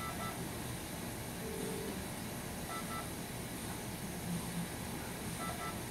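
Hospital monitoring equipment sounding short paired beeps about every two and a half seconds, with a lower held tone in between, over a steady hiss.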